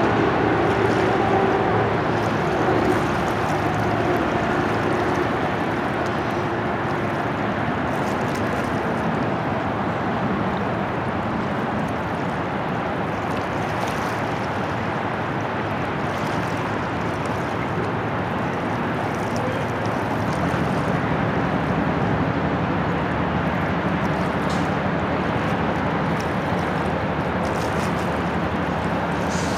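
Steady rush of wind and water at the harbour shore, with a faint low engine hum underneath and a fainter tone that fades out in the first few seconds.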